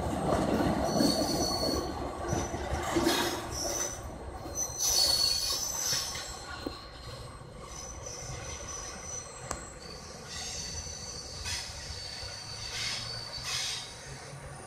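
Freight train's steel wheels squealing on and off in high, thin tones as the cars take a curve, over the rumble of the cars rolling. The rumble fades as the train pulls away.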